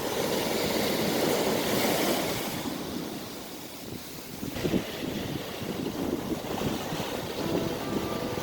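Wind buffeting the microphone over the wash of ocean surf, rising and falling in gusts.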